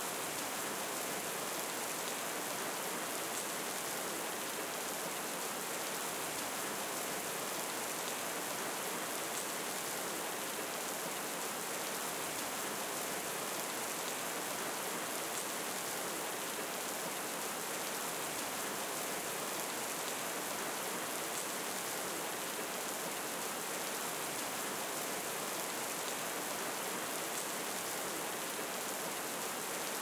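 Steady rain falling: an even hiss, strongest in the high range, with faint ticks of single drops here and there.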